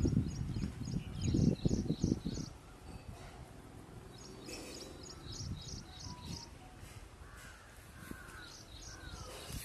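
Bird calls: a rapid run of short, high, repeated notes, heard three times, at the start, about halfway through and near the end, with a few lower sliding calls just before the last run. A low rumble fills the first two and a half seconds.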